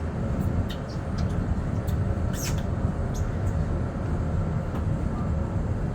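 Steady low rumbling noise, with a few brief faint high squeaks and ticks, the clearest about two and a half seconds in.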